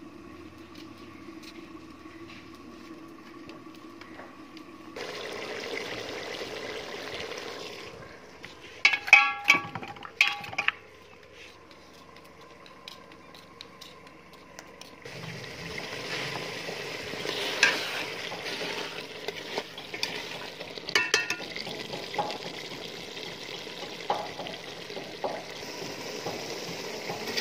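Beef and onions cooking in a metal pot: stretches of steady sizzling hiss, a quick run of ringing metal clinks about nine seconds in, and a spoon stirring and scraping in the pot from about fifteen seconds in.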